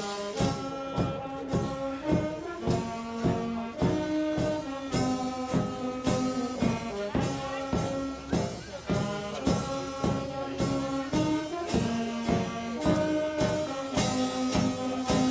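Brass band with a bass drum playing a tune: held brass chords over a steady drum beat.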